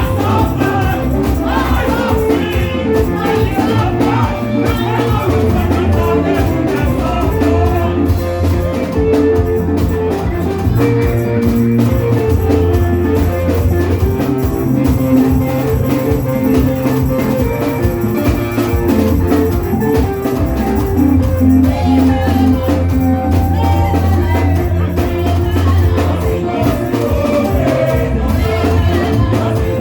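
Live gospel praise music: a band with a steady drum beat and a strong bass line, with voices singing over it.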